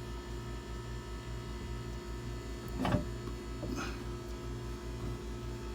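A steady low machine hum, pulsing several times a second, with a short falling squeal about three seconds in.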